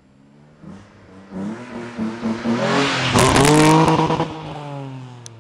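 Opel Vectra V6 driving past close by. The engine note climbs as the car accelerates toward the camera and is loudest with a rush of tyre noise about three seconds in. It then drops in pitch and fades as the car pulls away.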